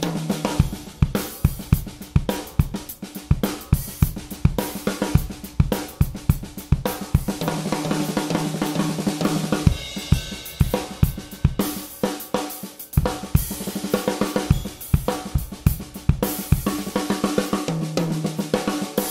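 A drum kit groove played with sticks, led by a black-and-gold SunRising snare drum with brass hoops, along with hi-hat, bass drum and cymbals. The snare has a steady ring to it, and runs on a lower-pitched drum come in a few times.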